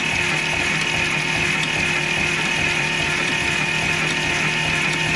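Starter motor cranking over the tractor's six-cylinder engine, which does not fire, with an even chugging of about three to four beats a second. The engine is being turned over to see whether any more valves are stuck open.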